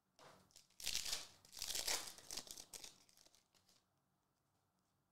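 Foil wrapper of a trading-card pack crinkling and tearing as it is ripped open by hand, in several rustling bursts that stop about a second before the end.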